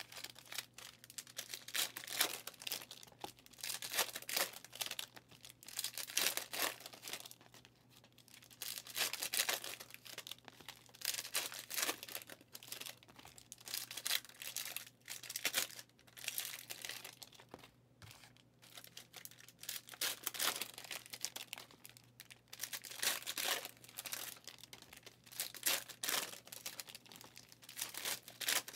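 Trading card packs (2023 Chronicles Draft Picks) being torn open one after another, their plastic wrappers ripping and crinkling in repeated irregular bursts.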